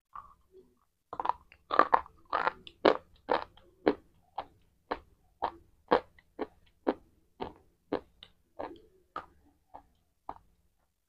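Close-miked chewing of a bite of a hard white chalk-like block: crisp crunches about twice a second, loudest in the first few seconds and growing softer toward the end.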